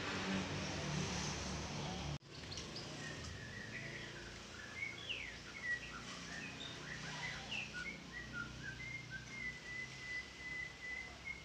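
Small birds chirping and twittering in short rising and falling calls, with one long, steady whistled note over the last few seconds, above a low steady hum.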